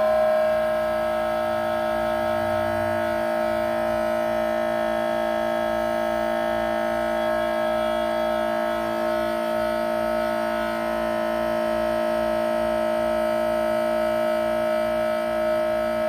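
A steady drone of many held tones sounding together; a higher tone drops out about half a second in, and the rest holds with small shifts in the mix.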